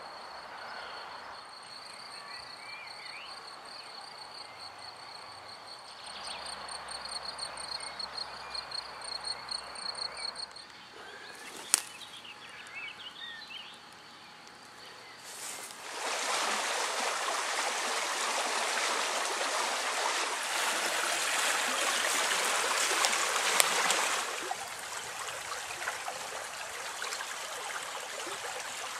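A steady high-pitched insect trill with a few faint bird chirps, cut off after about ten seconds; then, after a single click, the loud rushing of a small woodland stream comes in about halfway through and eases off a few seconds before the end.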